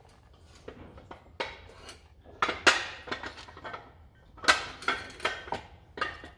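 Irregular clanks and knocks of a jet boat's removed steering nozzle and reverse bucket assembly being handled and shifted on a concrete floor, its parts knocking together.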